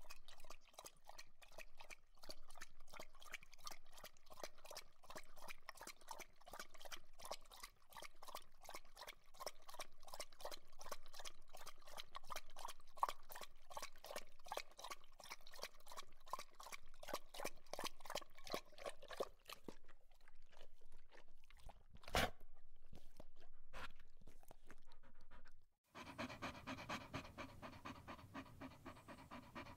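A dog panting fast and steadily, about five breaths a second. About two-thirds of the way through, the panting thins out and there is one sharp click. Then a lower, fuller-sounding panting takes over.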